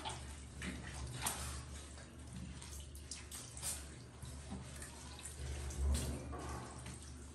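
Water dripping and splashing onto a tiled floor in short, irregular bursts as a soaked Shih Tzu's fur is squeezed and rubbed by hand after its bath. A steady low hum runs underneath.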